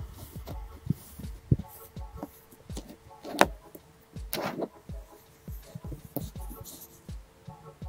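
Kinetic sand pressed and crumbled by fingertips close to the microphone: a string of soft, dull thuds a few times a second, with two louder crunches of the sand breaking apart in the middle.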